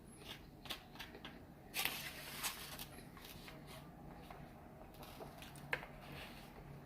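Quiet eating sounds: scattered mouth clicks and smacks while chewing, with a brief rustle about two seconds in and one sharper click near the end.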